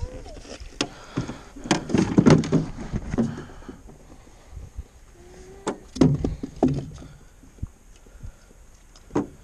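Scattered knocks and thunks of fishing gear against an aluminium johnboat as a foam jug-line float is netted and lifted aboard and its line is pulled in by hand. There is a quick cluster of knocks about two seconds in and a few more single knocks after.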